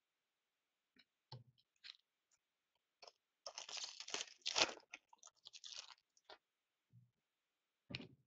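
Wrapper of a hockey card pack being torn open and crinkled: a few light clicks, then a couple of seconds of crackling rustle, with a short thud near the end.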